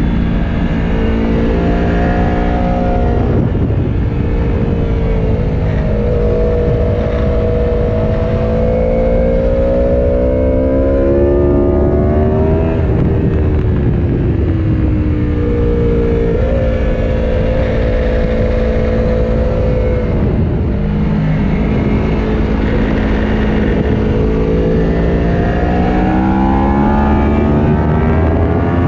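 Aprilia Tuono V4 Factory's V4 engine on track, rising in pitch as it accelerates and falling away as it slows, with sudden pitch jumps at gear changes a few times.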